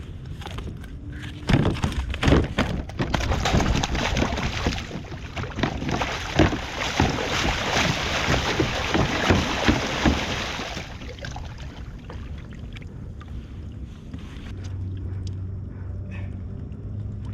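Water splashing and sloshing with a run of sharp knocks against a plastic fishing kayak for about nine seconds, then dying down. A low steady hum comes in near the end.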